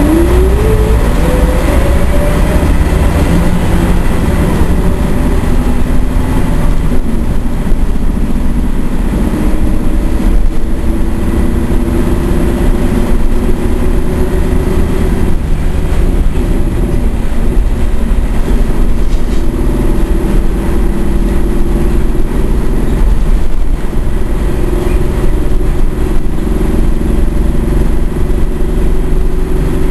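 Nissan Diesel U31RCN city bus heard from inside the passenger cabin while under way: the diesel engine and drivetrain run with a heavy low rumble. A whine rises in pitch over the first two seconds as the bus speeds up, then settles into a steady drone with body rattles.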